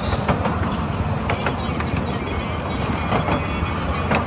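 Ride-on miniature railway cars rolling along the track: a steady low rumble of wheels on rail, with sharp clicks every half second or so as the wheels cross rail joints.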